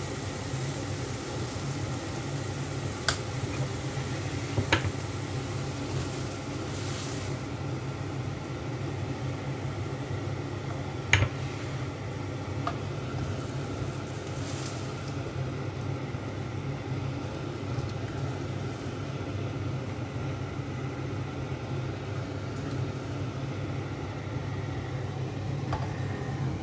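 Chinese kale (kailan) stir-frying in a nonstick wok, sizzling under a steady low hum. A few sharp clicks of the spatula against the pan come through, the loudest about eleven seconds in.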